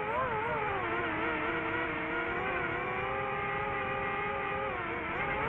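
DJI FPV drone's motors and Master Airscrew Ludicrous propellers whining in flight. The pitch rises and falls with the throttle: it wavers at first, then holds fairly steady and dips near the end.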